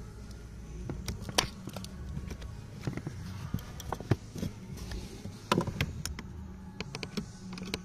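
Scattered sharp clicks and light knocks of hands working a small plastic wiring connector and a screwdriver under a car dashboard, over a steady low hum.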